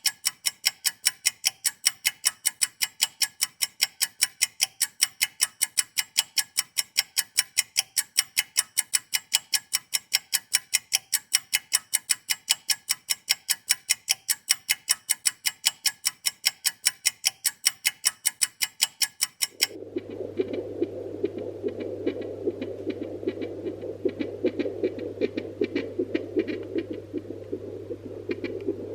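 Pocket fetal Doppler sounding through its speaker as the probe searches the gelled pregnant belly for the baby's heartbeat: a fast, even pulsing, then about twenty seconds in it cuts abruptly to a quieter steady hum with a rapid flutter.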